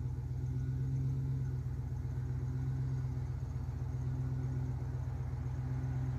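A vehicle engine idling: a steady low hum with a fine, even pulse.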